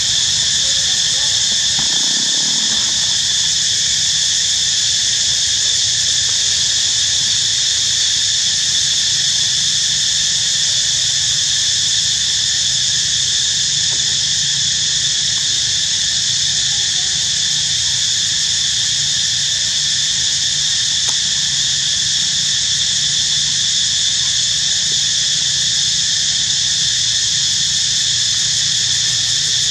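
Loud, steady insect chorus: a constant shrill drone at several pitches that never lets up.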